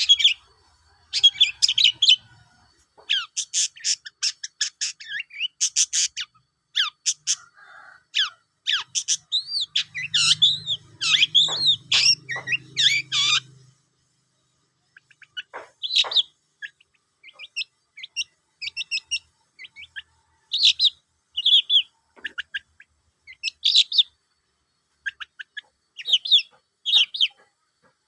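Long-tailed shrike (cendet) singing: a varied, fast run of sharp chirps, rapid trills and short gliding whistles, with a brief pause about halfway through.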